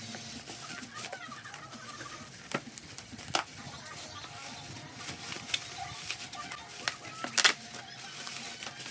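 Three sharp clicks or taps, the loudest about seven and a half seconds in, over a steady low background with faint animal calls.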